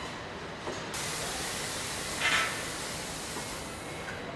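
Car assembly-line factory noise: a steady hiss comes in about a second in, with a short, louder burst of hiss about halfway through.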